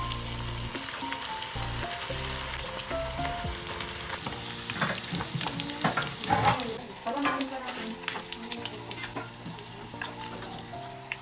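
Spring rolls deep-frying in hot oil in a small metal pot, sizzling steadily. Around the middle there are several sharp clicks of metal tongs against the pot as a roll is lifted out, and the sizzling eases in the second half.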